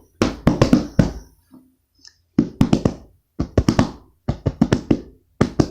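An improvised drum beat of taps and knocks: quick clusters of three to five strikes, with short pauses between the clusters.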